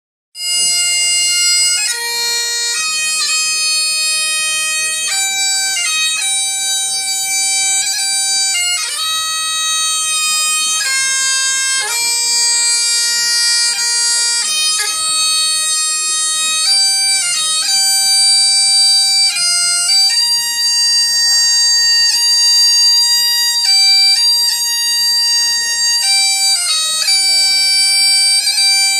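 Highland bagpipes playing a tune: held melody notes stepping up and down, broken by quick grace-note ornaments, starting about half a second in.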